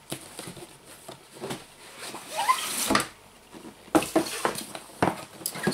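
Cardboard packaging being handled: a white inner box slid out of the outer retail carton, with scraping and rustling and several light knocks.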